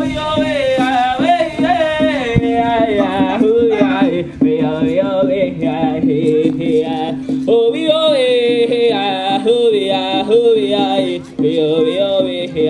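Native American powwow song: a voice singing long, wavering, bending lines in vocables over a steady lower sustained tone, with scattered sharp percussive hits. The singing breaks briefly about 4 seconds in and again near 11 seconds.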